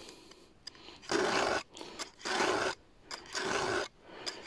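Round chainsaw file rasping across a saw-chain cutter tooth in three strokes, about one a second, sharpening the tooth.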